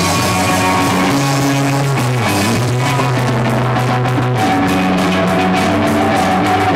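Live rock band playing loud: held electric guitar chords that change every second or so over a drum kit with cymbals.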